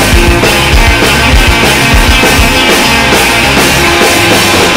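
Loud punk rock music from a record: a band with electric guitars, bass and drums playing a steady beat.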